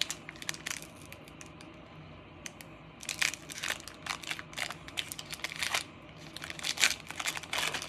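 Foil booster pack of Pokémon cards being torn open and handled: irregular crinkling and tearing of the wrapper, sparse at first and busier from about three seconds in.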